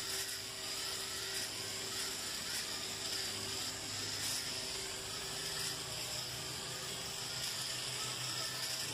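Small electric gear motor of a toy walking robot running steadily, a whine with gear clatter as its legs step, with a few faint clicks now and then.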